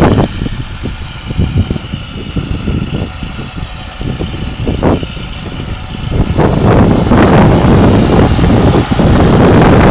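John Deere tractor engine running as the tractor pulls a round bale carrier up to a bale. It grows louder from about six seconds in as the tractor draws near.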